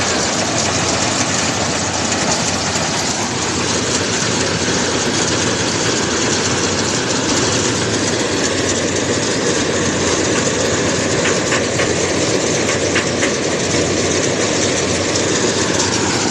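Rice combine harvester running steadily: a loud, even mechanical noise.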